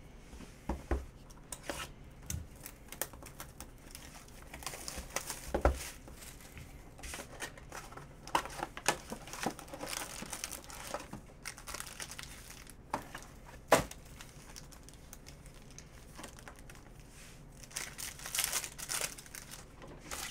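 Crinkling and tearing of wrapping and foil card packs as a Panini Prizm baseball hobby box is opened and a pack is ripped open, with a few sharp knocks in between.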